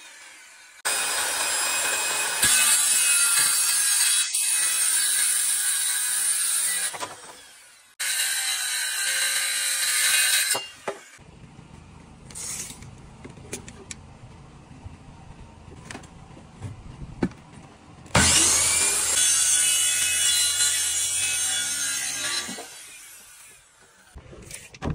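Electric circular saw cutting through green bamboo poles in three long cuts: from about a second in, again at about eight seconds, and once more from about eighteen seconds. The stretches between the cuts are quieter.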